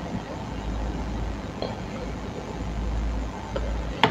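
Steady low background rumble, with one sharp computer mouse click near the end.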